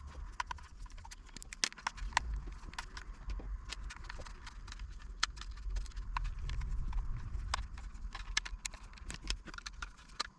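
Small screwdriver backing the screws out of a plastic toy watch casing: many light, irregular clicks and ticks over a low hum.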